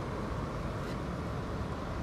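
Steady rumble of a car driving on a snowy winter road: engine and tyre noise, even and unbroken.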